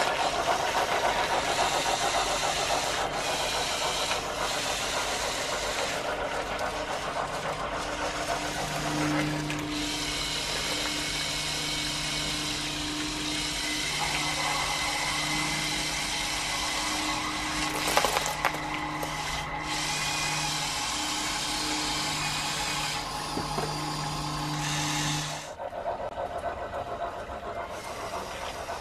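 Electric motors and linear-actuator gearing of a motorised LEGO Technic 8043 excavator whirring as the boom, arm and bucket move and scoop through dry beans. A low hum comes and goes in short stretches through the middle, and the sound drops away abruptly near the end.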